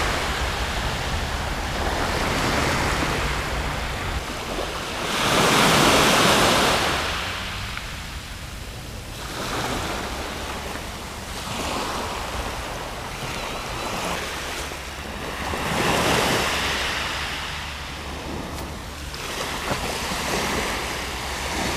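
Small waves breaking and washing on a shingle beach, swelling and fading every few seconds and loudest about six seconds in and again near sixteen seconds, with a steady low rumble of wind on the microphone.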